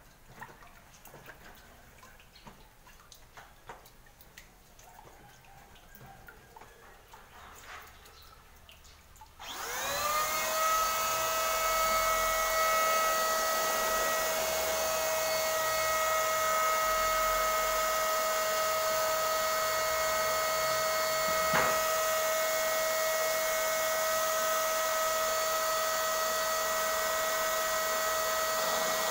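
An INGCO 550 W electric paint spray gun is switched on about a third of the way in. Its motor spins up within a fraction of a second to a steady, high-pitched hum and runs on evenly while spraying. Before that there are only faint handling clicks.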